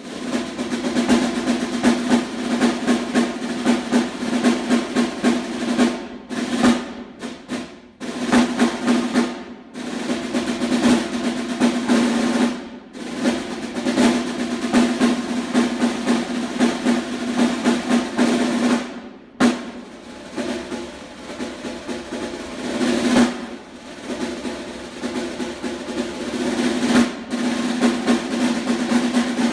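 Solo snare drum played fast with sticks: dense rolls and rapid strokes, broken by a few short stops, with a softer passage a little past the middle.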